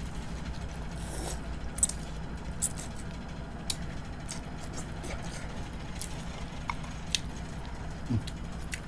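People eating rice noodles with chopsticks: slurping and chewing, with scattered small clicks of chopsticks against ceramic bowls, over a steady low hum.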